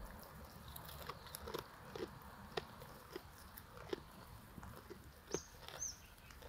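Sheep eating feed: faint, irregular crunching and clicking of chewing and biting, with a couple of short high chirps about five and a half seconds in.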